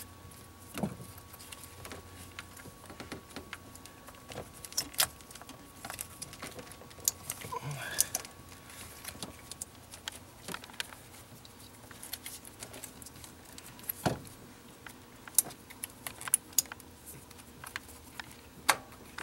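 Irregular clicks, taps and light rattles of metal and plastic parts as a fuel rail with four injectors is worked down into the injector holes of a 2.4 L Ecotec engine's intake manifold, with hoses and wiring pushed aside.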